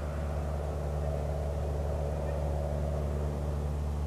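Cessna 172N Skyhawk's four-cylinder Lycoming engine and two-blade propeller droning steadily as the plane climbs out after takeoff.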